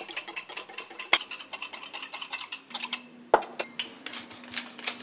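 Wire whisk beating a vinaigrette in a ceramic bowl: rapid, dense clinking and scraping for about three seconds. Then one sharp knock, and a few scattered clinks.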